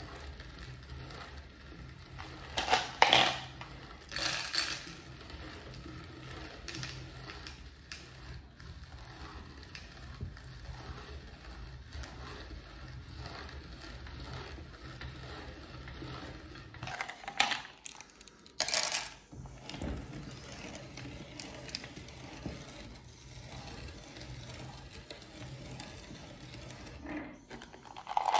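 Hand-cranked metal meat grinder being turned, its auger grinding M&M's chocolate candies into strands, with a steady low mechanical rumble and a few sudden louder noises. The cranking stops about two-thirds of the way through.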